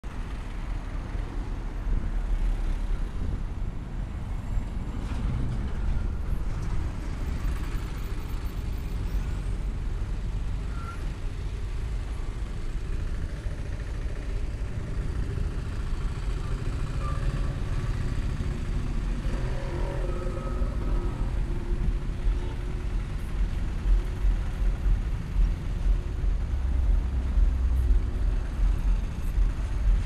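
Road traffic passing: cars and heavy vehicles such as trucks and buses, heard as a steady low rumble that turns choppier near the end.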